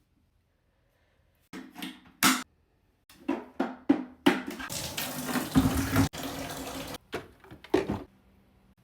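Tap water running and splashing in a sink, first in short bursts, then a steady stream for about three seconds, then a few more splashes before it stops.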